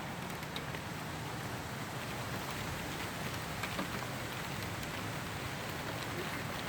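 Steady rain falling, with a few separate drops ticking now and then.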